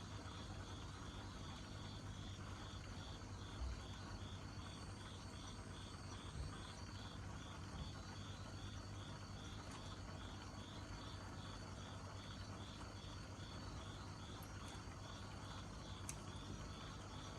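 An insect chirping in a steady rhythm, about two to three high chirps a second, over a continuous low hum.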